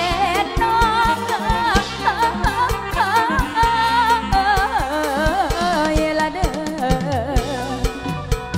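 Live Thai luk thung song: a woman sings an ornamented, wavering melody into a microphone over a band with a steady drum beat, heard through the stage sound system.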